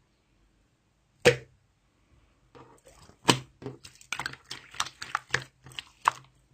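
One loud sharp click about a second in, then a rapid, irregular run of clicks and crunching sounds.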